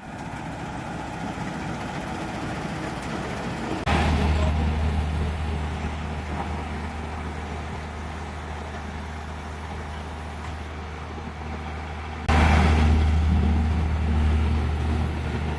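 Engine of farm machinery running steadily with a low hum, becoming abruptly louder about four seconds in and again near twelve seconds.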